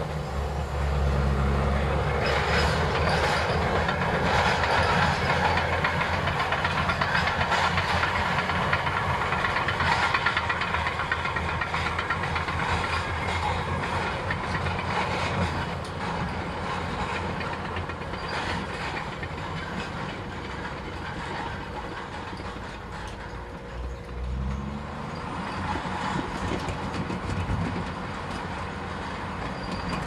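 Shantui SD22K crawler bulldozer working: its diesel engine running under load with the steel tracks clanking and rattling. The sound fades as the machine drives away, and the engine note rises briefly late on.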